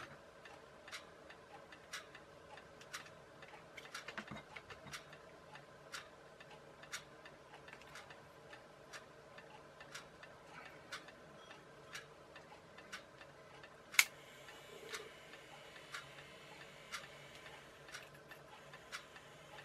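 Clock ticking steadily, about once a second. About fourteen seconds in there is a sharp click as the small motor from a vibrating toothbrush is switched on, and it then runs with a faint steady whir, spinning a small plastic propeller on its shaft.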